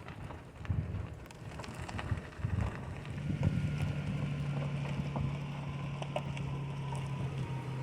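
Van engine settling into a steady low running hum about three seconds in, after a few clicks and rustles.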